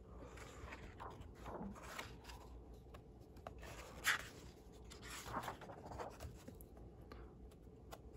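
Paper pages of a bound manual being turned by hand: soft rustling and sliding of paper, with a sharper flick as a page turns over about four seconds in.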